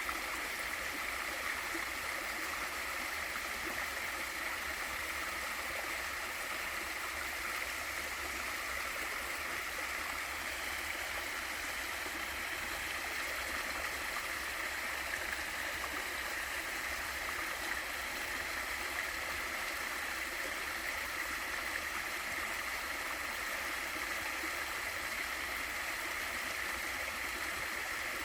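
Small waterfall in a mountain stream: water pouring and rushing in a steady, even hiss that does not change.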